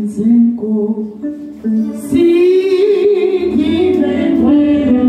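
Electronic keyboard playing slow, held chords, with a voice singing over it from about two seconds in.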